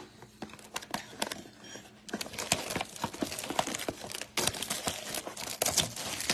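Clear plastic shrink wrap crinkling and tearing as it is peeled off a trading-card blaster box. A few light knocks first, then dense crinkling from about two seconds in, loudest near the end.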